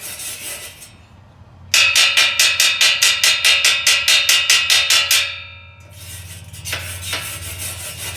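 Cleaning a fresh weld bead on steel: scraping and scrubbing at the metal. In the middle comes a quick, even run of about twenty ringing metal-on-metal strikes, about five a second, as the slag is knocked off. The scraping then resumes.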